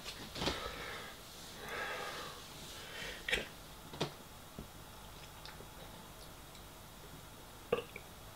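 A man breathing and sniffing, with a few short clicks in between.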